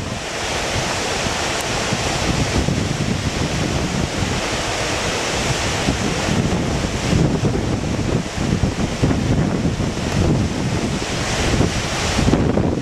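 Steady rushing of a whitewater river rapid, with wind buffeting the microphone in uneven gusts.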